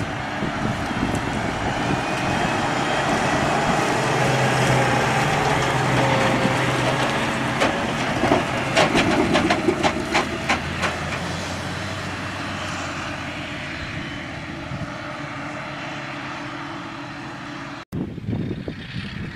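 Claas Jaguar forage harvester running under load, its engine and cutting gear giving a steady drone with a held whine. A run of sharp rattling clicks comes about halfway through, then the sound grows fainter over the last several seconds and cuts off abruptly near the end.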